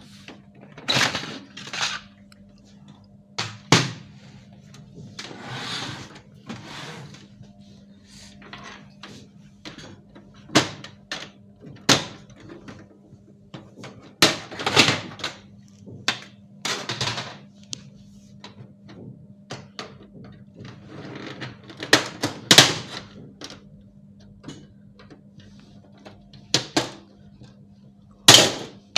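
Plastic casing and parts of an HP LaserJet Pro 400 printer being handled and taken apart by hand: irregular clicks, about ten sharp knocks and short scraping sounds, over a steady low hum.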